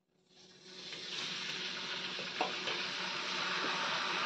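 Washed rice poured into hot ghee in a steel kadai, sizzling. The sizzle swells up over the first second, then holds steady with a few light clicks.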